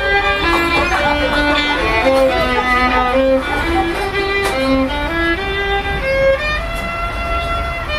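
Solo fiddle playing a tune of short stepped bowed notes, moving into longer held notes near the end, over a steady low rumble.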